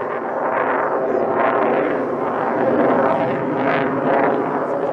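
Jet noise from an F-22 Raptor's two Pratt & Whitney F119 turbofan engines as the fighter manoeuvres overhead: a loud, rough rushing sound that swells and eases several times.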